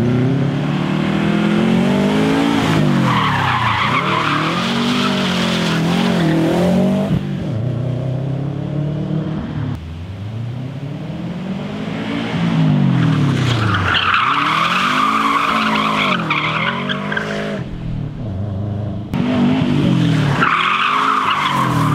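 Subaru engine revving up and down hard, over and over, with tyres squealing in three long stretches, starting about 3, 13 and 20 seconds in. This is a handbrake turn attempt on a car whose handbrake is not locking the rear wheels.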